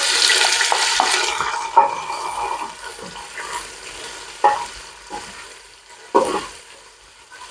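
Sliced onions sizzling in hot oil in a stainless steel pot as they are tipped in and stirred with a spoon, the start of frying them. The sizzle is loudest at first and dies down, with a few knocks of the spoon against the pot.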